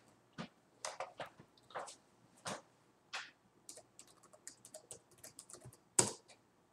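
Typing on a computer keyboard: irregular light key clicks, a few a second, with one louder click about six seconds in.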